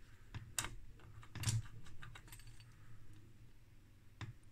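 Scattered small clicks and light rattles of a clip-on current probe and its cable connector being handled, about five separate clicks, over a faint steady low hum.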